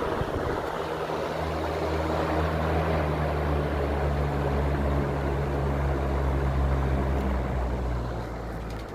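Electric fan running: a steady rush of air with a low motor hum. The hum fades near the end.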